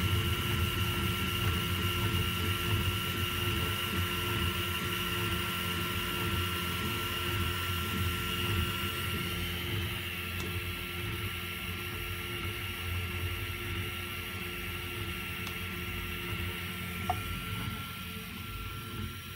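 Prusa i3 3D printer printing the first layer of a job: the stepper motors whir and buzz as the print head moves back and forth, over a steady whine.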